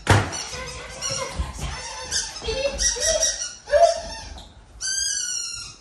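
A small dog's excited short whines and yips, with one high squeak falling slightly in pitch near the end.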